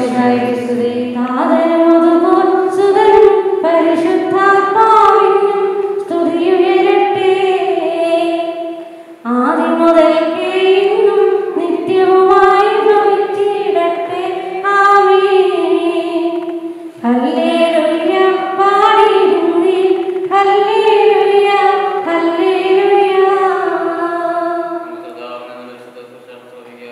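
A woman's voice singing a slow church hymn in long, drawn-out phrases, with short breaks about 9 and 17 seconds in and a fade near the end.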